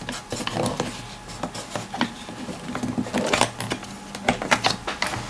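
Irregular small clicks and taps of thin laser-cut plywood pieces on a wooden puzzle box as fingers press, push and slide its slats and panels.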